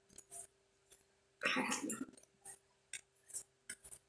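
Tarot cards being handled and shuffled: a series of short, crisp card snaps and flicks, with one longer rustle about a second and a half in.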